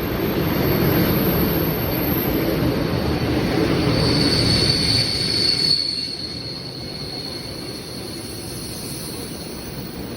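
ED4M electric train squealing its brakes: a thin, high, steady squeal over the rumble of the cars on the rails. The squeal is strongest about four to six seconds in, after which the rumble drops away and a fainter squeal lingers.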